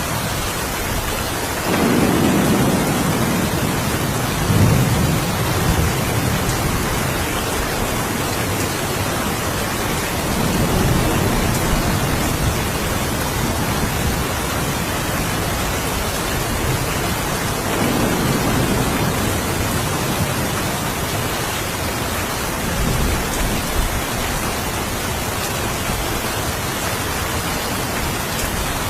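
Steady rain falling, with low rumbles of thunder rolling in and fading several times: the strongest about two seconds in, others around ten and eighteen seconds, and a shorter one a little later.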